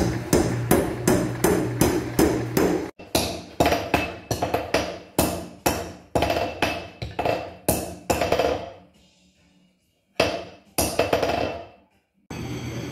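Beaudry No. 5 mechanical power hammer pounding hot iron, about three blows a second over the steady hum of its drive. About three seconds in this gives way to a hand hammer striking hot iron on an anvil, two or three ringing blows a second, then a pause and two more blows; a steady mechanical noise starts near the end.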